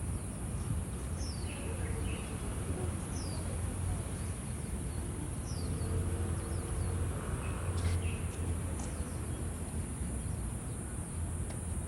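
Outdoor ambience: a steady high insect hiss under short, faint descending bird chirps every second or two, over a low rumble.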